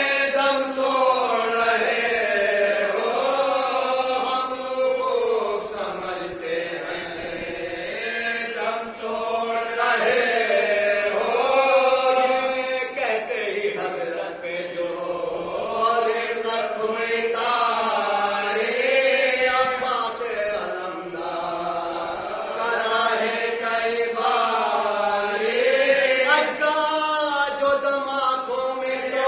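Group of men chanting a marsiya, an Urdu mourning elegy, together without instruments. They sing long held phrases that rise and fall every few seconds.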